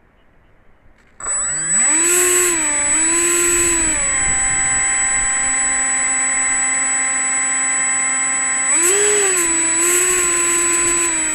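Electric ducted fan of a Freewing F-86 Sabre RC jet spooling up sharply about a second in to a loud, steady high-pitched whine. It eases to a lower steady pitch, surges again near the end, then throttles back.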